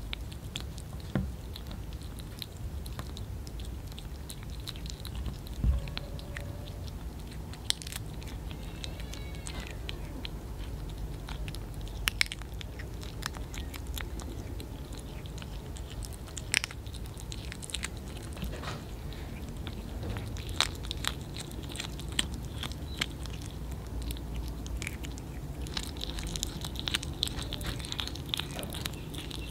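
Two kittens biting and chewing raw small fish: irregular wet clicks and crunches of flesh and bone, coming thicker near the end.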